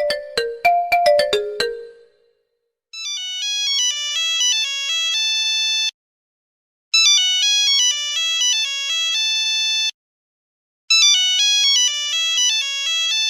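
Phone ringtones: a plucked-sounding melody ends about two seconds in. Then a different high-pitched chiming ringtone phrase, about three seconds long, plays three times with a second's pause between each.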